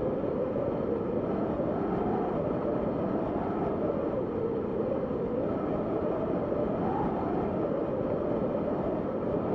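Steady wind blowing, a low rushing with a whistling band that slowly swells and falls in pitch every few seconds.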